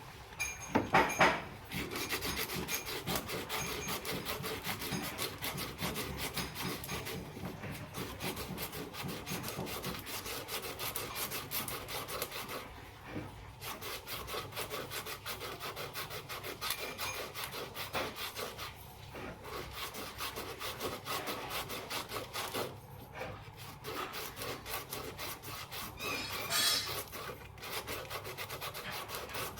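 Rapid back-and-forth rubbing and scraping on a ceiling fan part being cleaned by hand, stopping briefly a few times.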